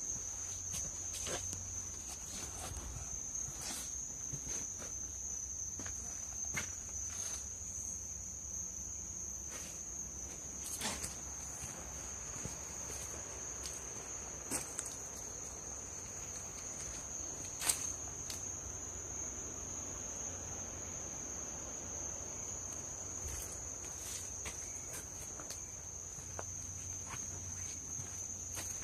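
Night insects, crickets by their sound, chirring in one steady high-pitched trill. Scattered light clicks and snaps come at irregular moments, the sharpest about two-thirds of the way through.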